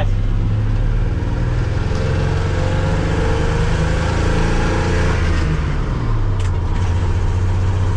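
A 1987 Ford F-150's 300 cubic-inch inline-six running as the truck drives off. The engine note rises from about two seconds in and falls back about six seconds in.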